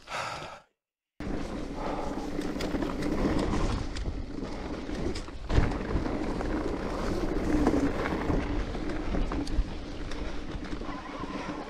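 Electric mountain bike riding fast down a rough forest trail: steady tyre and wind noise with the bike rattling, and a hard knock about five and a half seconds in and another near the end. The sound drops out completely for half a second about a second in.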